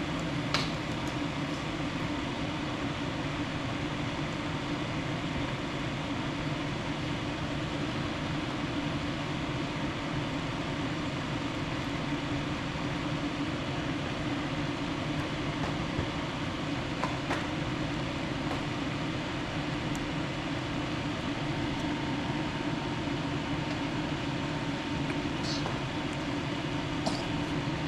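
Steady background hum with a faint steady tone in it, and a few faint clicks, one about half a second in and two near the end.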